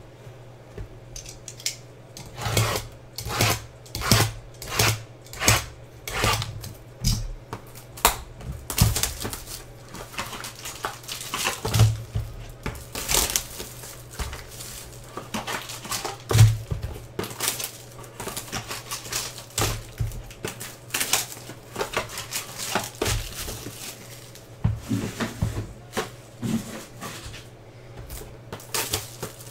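Small cardboard trading-card boxes handled on a table: a steady run of knocks as they are shuffled and set down, then scattered knocks, cardboard and wrapper handling as a box is opened, with one louder knock about halfway.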